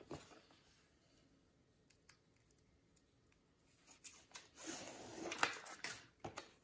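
A velvet sheet being handled and its backing peeled off: a crackly rustle with small clicks from about four seconds in, loudest a little after five seconds, with a few faint ticks before it.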